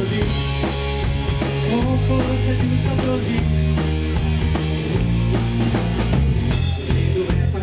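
Live rock band playing an instrumental passage: drum kit with kick drum and cymbals keeping a steady beat, under an amplified electric bass holding long low notes.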